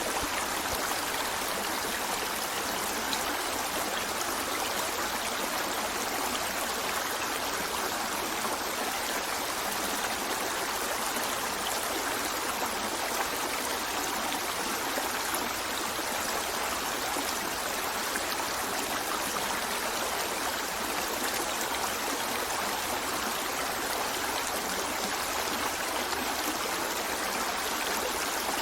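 A shallow river flowing steadily over rocks, a continuous even rush of water with small splashes and trickles.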